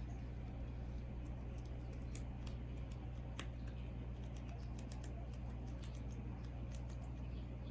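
Guinea pigs munching, a rapid irregular run of small crisp crunches, over a steady low electrical hum.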